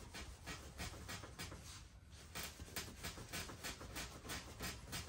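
Knife blade sawing through a leather belt in repeated short scraping strokes, about three a second, with a brief pause about two seconds in.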